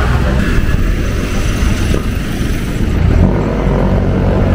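Street traffic: a motor vehicle's engine running close by, a steady low rumble.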